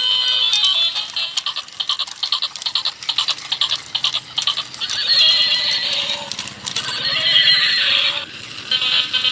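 Battery-operated toy horse walking with rapid, even clicking, its speaker playing a tinny recorded horse whinny twice, about five and seven seconds in.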